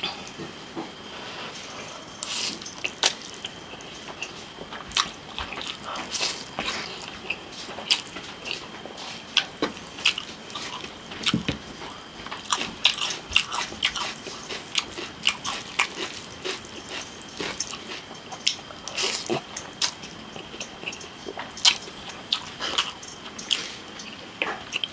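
Close-miked eating of spicy instant noodles: chewing with an irregular stream of wet mouth smacks and sharp clicks. A faint steady high whine runs underneath.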